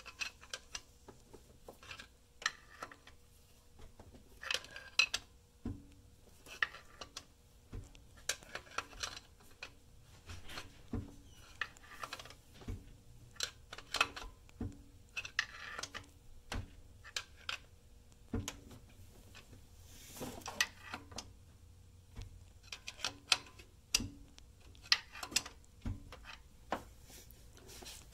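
Hand tools and metal engine parts clinking and knocking in scattered short clicks, about one a second, with a few heavier knocks among them.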